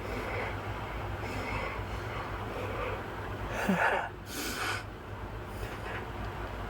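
A single sneeze about three and a half seconds in: a short voiced intake rising in pitch, then a sharp hissing burst, over a steady low hum.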